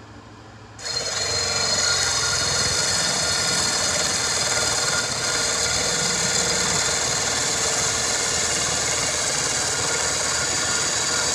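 Power drill spinning a hickory dowel through a steel cutting die, shaving the rod down to ramrod size. It starts about a second in and then runs steadily, a steady whine over the rasp of hard wood being cut.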